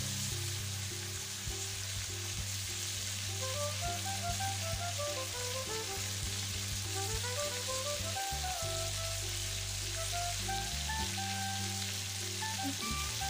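Fish pieces sizzling as they fry in oil in a black iron wok, a steady hiss. Background music plays along with it: a simple melody of short notes stepping up and down over low held notes.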